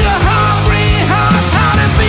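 Classic-style heavy metal track with distorted guitars, bass and drums. A lead guitar line slides up into held notes several times.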